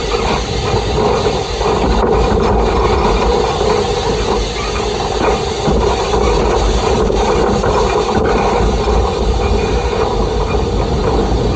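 Peckett industrial steam locomotive running along the line, heard close from its coal bunker: a steady rumble and hiss, with a few sharp clicks.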